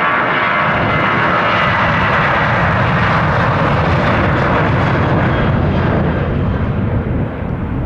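A departing WestJet airliner's engines at takeoff power, a loud, steady roar that turns deeper in pitch as the aircraft passes and begins to fade near the end.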